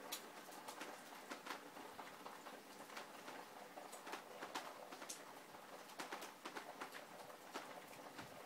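Heavy rain falling: a steady hiss with irregular sharp taps of drops striking hard surfaces.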